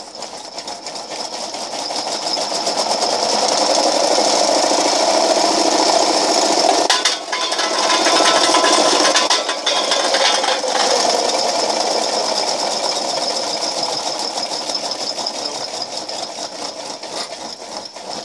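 Homemade can crusher running: its motor drives a belt, a 7-inch pulley and four solid wheels with a steady whirring rattle that builds up over the first few seconds as it comes up to speed. From about seven to eleven seconds in, an uncrushed pop can pushed bottom first between the drive wheels clatters against them without being drawn in, and the machine slowly winds down near the end.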